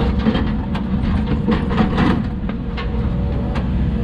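Hidromek 140 excavator's diesel engine running steadily, heard from the cab, with a run of short knocks and clatters from the machine at work.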